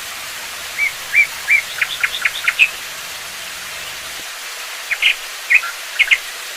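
Small songbirds chirping in two quick runs of short chirps, about a second in and again about five seconds in, over a steady hiss of falling water.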